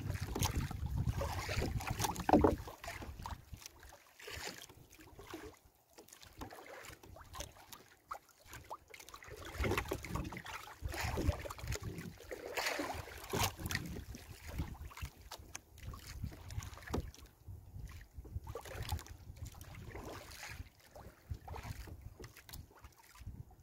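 Wet nylon gill net being hauled hand over hand into a small outrigger boat and shaken out: irregular rustles, drips and light knocks against the hull, loudest in the first few seconds. Wind rumbles on the microphone underneath.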